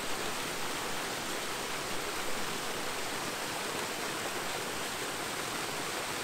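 Small river waterfall pouring over stones into a pool: a steady rush of falling water.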